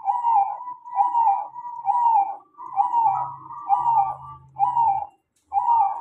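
Zebra dove (perkutut) cooing: a run of short, hooked coos, about one a second.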